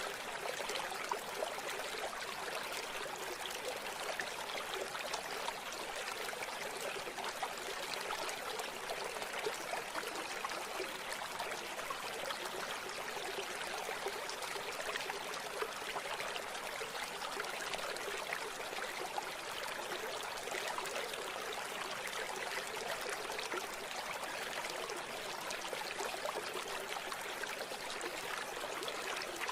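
River water flowing and babbling steadily, with many small splashes and trickles.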